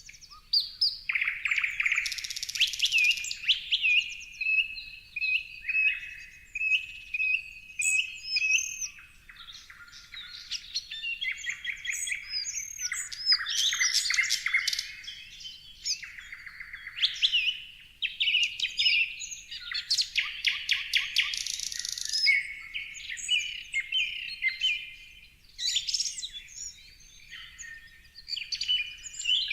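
Several songbirds singing and chirping over one another in a dense chorus of quick trills and short whistled notes.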